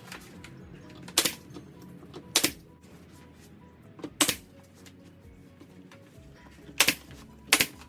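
Staple gun firing staples to fasten window screen mesh to a pine frame: about five sharp snaps, a second or two apart, two of them close together in the middle.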